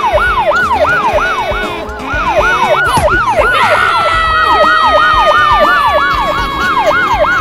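A yelping siren sound effect, its pitch sweeping up and down about three times a second. A long, slowly falling tone joins it about four seconds in.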